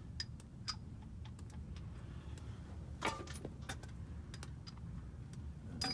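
Scattered small metallic clicks and clinks of hand tools being handled, with a cluster about three seconds in and another near the end, over a low steady rumble.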